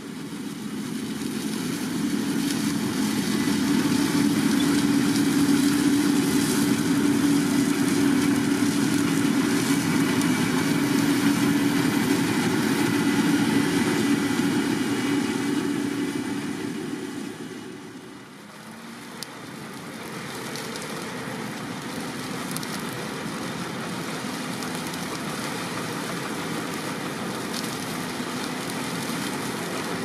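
Grimme Ventor 4150 self-propelled potato harvester running as it works the field: a steady engine and machinery hum that grows louder over the first few seconds, falls away around eighteen seconds in, then goes on more quietly.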